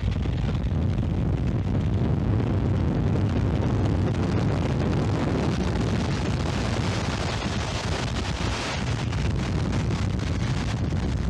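Tornado winds rushing past at close range, a loud steady low rumble with heavy wind buffeting on the camcorder microphone; it sounded like a freight train as it passed just overhead.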